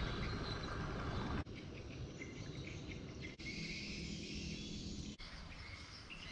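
Outdoor ambience of chirping insects over a steady low rumble, changing abruptly three times where short clips are joined.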